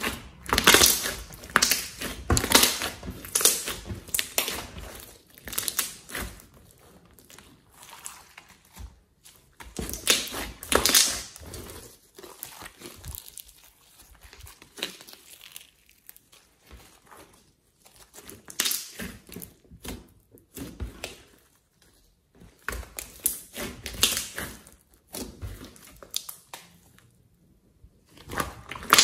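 Thick slime being squeezed, folded and stretched by hand, crackling and popping in irregular spells with quieter stretches between.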